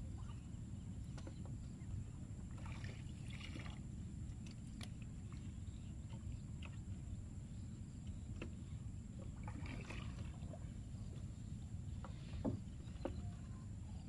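Wooden boat being poled through shallow water: water sloshing around the hull and pole, with two splashy stretches and a few light knocks against the wood, over a steady low rumble.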